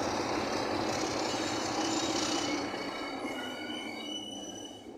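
Class 27 diesel locomotive running as it hauls its train away, the wheel flanges setting up a high, steady squeal from about a second and a half in. The whole sound fades over the last couple of seconds as the train draws off.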